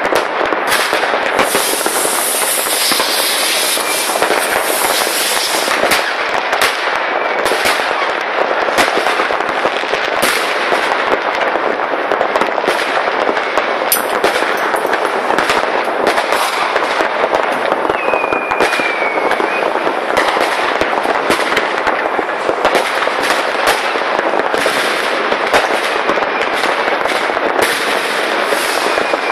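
Dense, continuous crackling and banging of many consumer fireworks and firecrackers set off all across a town, with a short whistle about two-thirds of the way through.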